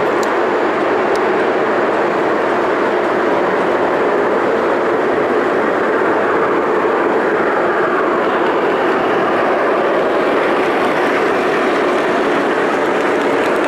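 Lionel model of a Pennsylvania Railroad Centipede diesel locomotive running along the layout's track, with a steady running noise of its wheels on the rails and its motor.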